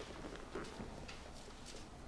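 Bible pages being turned: faint, scattered rustles and light taps.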